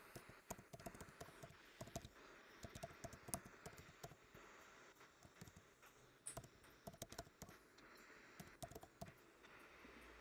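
Faint typing on a computer keyboard: irregular, quick key clicks.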